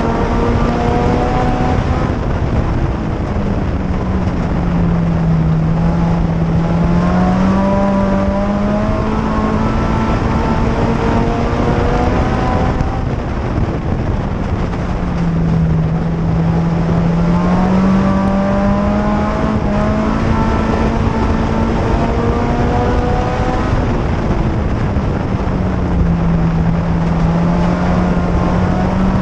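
A 2004 Chevrolet Cavalier mini-stock race car's 2.2-litre four-cylinder engine, heard from inside the cockpit, running hard while lapping a dirt oval. Its note dips and climbs again three times, about every eleven seconds, over steady road and drivetrain noise.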